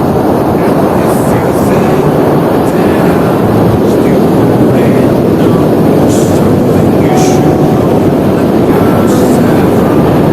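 Strong wind buffeting the microphone over the rush of ocean surf, a loud, even roar with no break.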